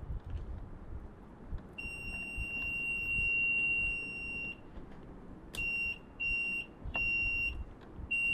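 Fire alarm hooter (electronic sounder) giving one steady high-pitched tone for about three seconds. After a short gap it cuts in and out in four short, uneven bursts while its wires are being connected to the panel, the mark of a connection that is making and breaking.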